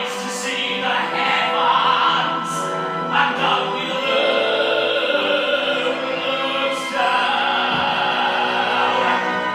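Stage-musical orchestra playing long held chords with singing over them; the chords change about three seconds in and again about seven seconds in.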